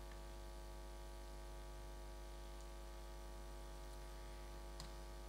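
Faint, steady electrical mains hum with no speech, and a faint tick near the end.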